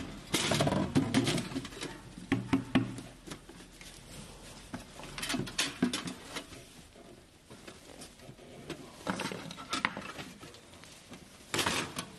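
Gloved hands handling and fitting small metal pump parts: irregular clicks, taps and rustling, over a low hum in the first few seconds, with a louder clatter near the end.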